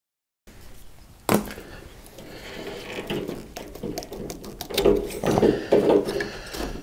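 Plastic wiring-harness connector plugs on a 1988 Ford Bronco's tailgate harness being worked and pulled apart by hand: a sharp click about a second in, then irregular rustling and clicking of the plugs and wires, busier near the end. It opens with a split-second gap of silence.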